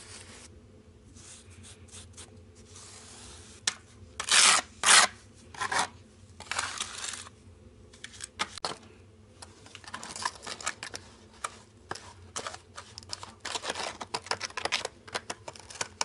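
A small metal spatula scraping cement mortar across ceramic tiles and pressing it into the joints between them: a run of irregular scrapes, the loudest about four to five seconds in, then many short quick scrapes near the end.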